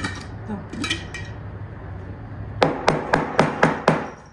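A small glass jar held upside down and rapped again and again, a quick run of sharp knocks about five a second starting past the middle, to shake loose contents that are stuck inside.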